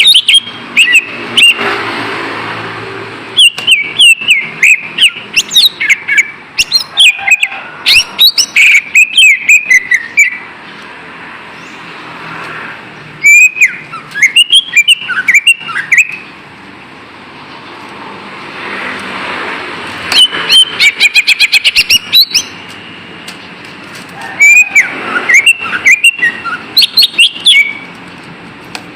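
Cucak ijo, a green leafbird, singing in loud bursts of varied whistled notes and fast chattering trills. The phrases are separated by pauses of a few seconds that hold a steady background hiss.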